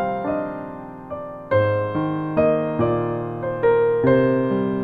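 Slow background piano music: single notes and chords struck about every half second and left to ring out.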